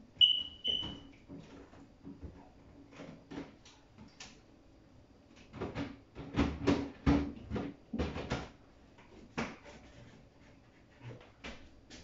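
Two short, high electronic beeps, then a run of light clatters and knocks from fridge shelves and food containers being handled while a refrigerator is cleaned out. The clattering is busiest in the middle.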